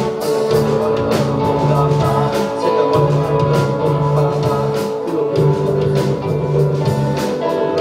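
Amateur rock band playing live, in a passage without singing: guitar over held bass notes, with a steady drum beat.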